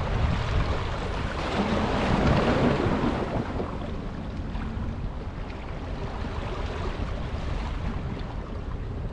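Steady rush of wind and sea, with wind buffeting the microphone; a little louder about two seconds in.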